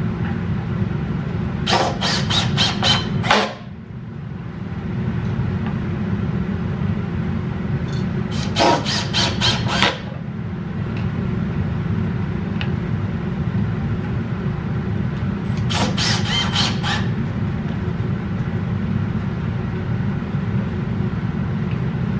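Cordless drill-driver, set to screw mode with its clutch turned down to 13, driving screws into the wooden case in three short bursts of a couple of seconds each. Each burst is a quick run of sharp clicks. A steady low hum runs underneath.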